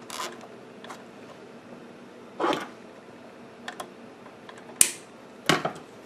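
Nylon cable tie being pulled tight, with short rasping zips of its ratchet, then sharp clicks near the end as side cutters snip off its tail.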